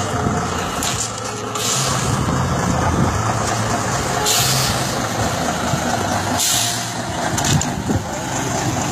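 Old Fiat heavy truck's diesel engine running loud and steady, with several short hisses cutting in over it every couple of seconds.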